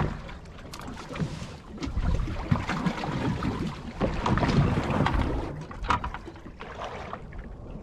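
Wind buffeting the microphone and water against the hull of a drifting boat, with a few short knocks from handling.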